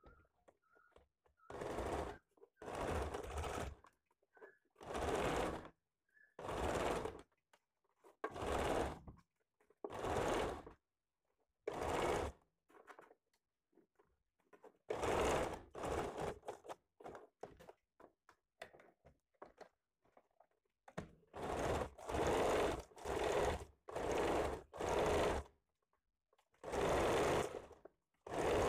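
Sewing machine stitching in about fifteen short runs of under a second each, stopping and starting with pauses between.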